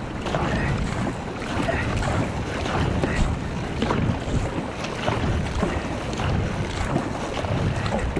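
Kayak paddling on open sea: paddle blades dipping and splashing and water rushing past the hull, under a steady rumble of wind on the microphone.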